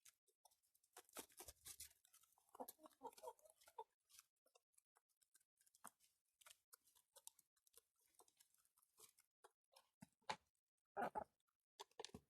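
Faint clicking of hens pecking at feed, with a louder short sneeze-like sound from a hen near the end, which the keeper cannot tell apart from the hen choking on its feed.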